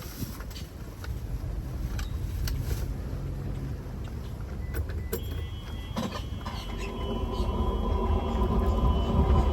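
Wind buffeting the microphone over the low rumble of an E-Z-GO RXV Elite electric golf cart rolling along the road, with a few light clicks. A steady whine joins about six seconds in and the sound grows louder toward the end.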